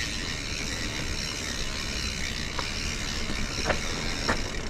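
Mountain bike riding fast through dirt berms: a steady rush of tyre and wind noise, with a few sharp clicks and rattles from the bike.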